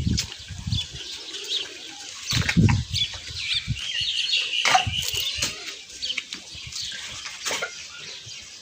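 Small birds chirping over the scuffling and low thumps of a young goat struggling while it is dosed from a bottle. The loudest scuffle comes about two and a half seconds in.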